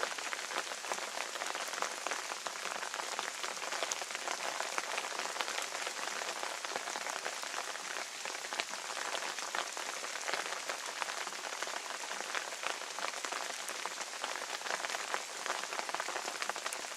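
Steady rain falling, a dense patter of many small drop impacts at an even level.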